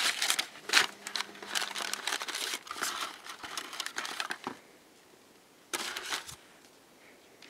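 Paper packing wrap and a cardboard box crinkling and rustling as new brake pads are unwrapped and handled, dying away about halfway through, with one more short burst of rustling near six seconds in.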